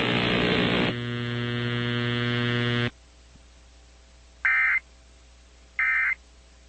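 A steady buzzing tone that cuts off sharply about three seconds in, followed by two short, high data bursts a little over a second apart: the Emergency Alert System end-of-message tones that close the alert.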